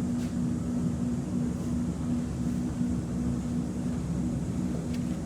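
Steady electrical hum of an X'Trapolis 2.0 electric train standing still, its onboard equipment running with a low drone and a tone that pulses evenly.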